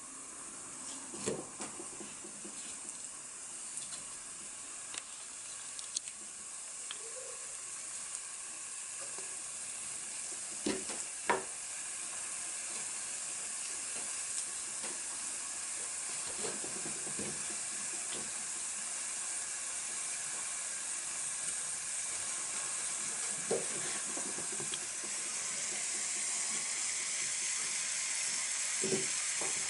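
Chicken frying in a pan, a steady sizzle that grows gradually louder as it cooks. There are a few sharp knocks of a utensil against the pan.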